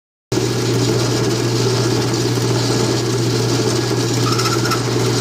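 Wood lathe running steadily with a strong, even hum, stopping suddenly near the end.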